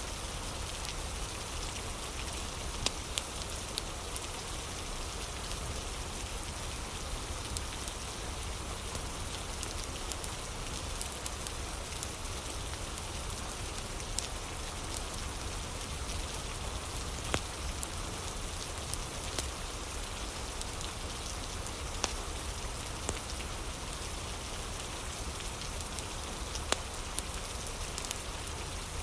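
Steady rain falling, with a low rumble underneath and scattered single sharp crackles from a wood fire.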